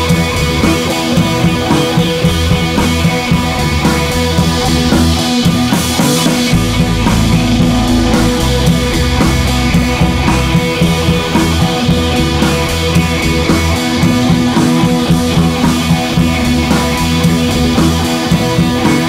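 Background rock music with guitar and drums, playing steadily with a regular beat.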